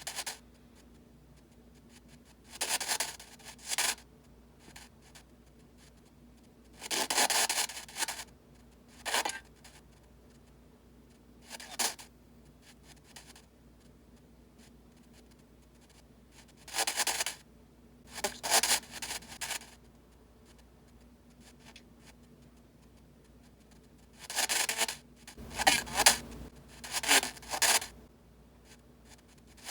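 Spirit box sweep-radio audio passed through a DAS-ANC adjustable noise control. It comes out as short, rasping bursts of radio static every few seconds, with the sweep noise cut down to near quiet between them. A faint steady hum runs underneath.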